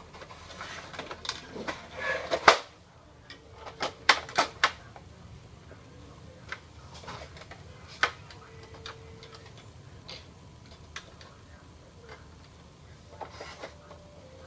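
Sharp plastic clicks and knocks as an Epson L210 inkjet printer's plastic housing is pried apart with a screwdriver. The loudest snap comes about two and a half seconds in, then a quick cluster of clicks around four seconds and another about eight seconds in.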